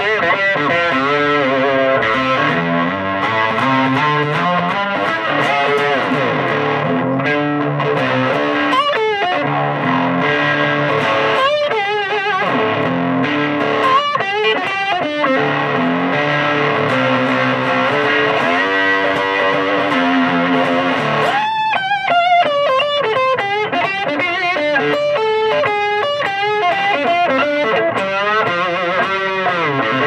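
Amplified electric lap steel guitar played with a slide, its notes gliding smoothly up and down through an effects pedal with some distortion. From about two-thirds of the way in, a swirling sweep effect moves through the tone.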